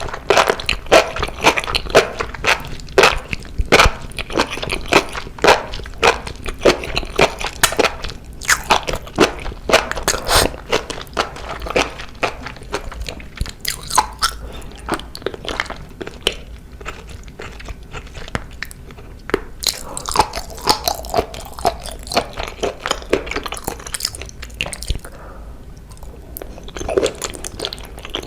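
Close-miked mukbang eating of octopus: a person biting and chewing, giving a dense, irregular run of mouth clicks and smacks that eases off for a couple of seconds near the end.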